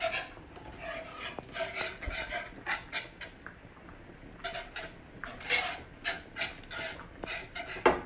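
Wire whisk scraping around a pan in quick, irregular strokes as a thick milk-based white sauce is stirred while it thickens.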